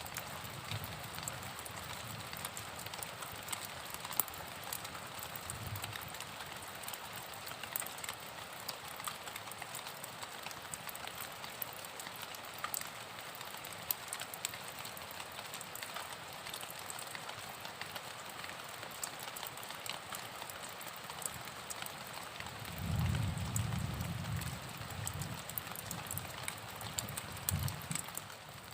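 Steady rain falling, a dense even hiss dotted with the patter of individual drops. A low rumble swells in briefly about three quarters of the way through.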